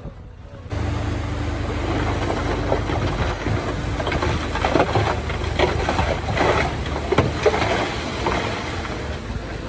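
Diesel engine of heavy earthmoving machinery running steadily, with a string of metallic clanks and knocks through the middle. The sound comes in abruptly just under a second in.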